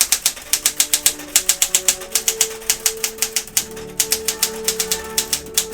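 Smith Corona Classic 12 manual typewriter being typed on in capitals: a rapid, uneven run of type bars striking the platen, several keystrokes a second, over background music.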